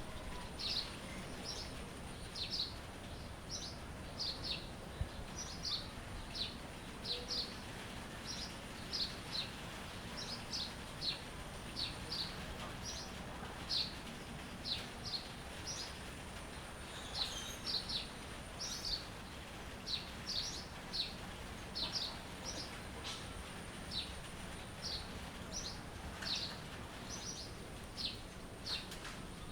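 Songbirds chirping: short, high, quickly falling notes repeated about one or two a second, over a steady background hiss with a faint thin high tone.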